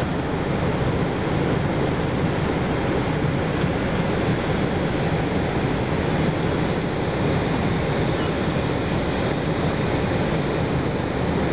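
Boeing 787 Dreamliner's Rolls-Royce Trent 1000 jet engines at low taxi power, a steady jet rush as the airliner rolls slowly along the wet runway.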